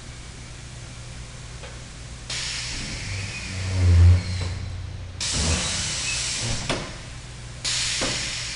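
Rebuilt BSC 20 blasting machine running through a repeating cycle. A hiss switches on abruptly about every two and a half seconds, and between the hisses a low hum swells loud and then drops away.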